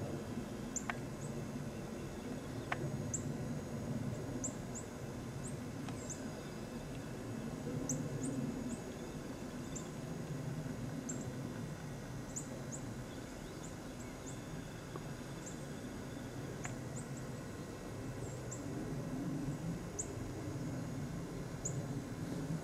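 Small birds' thin, high-pitched chip calls repeating irregularly, a few every couple of seconds, over a steady low rumble.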